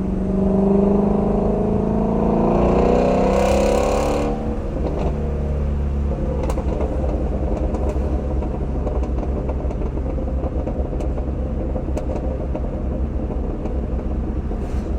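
Shelby GT350R's 5.2-litre flat-plane-crank V8 accelerating hard with a rising note for about four seconds, then the throttle lifts suddenly. It settles into a steady lower drone with a few scattered sharp pops from the stock exhaust on the overrun.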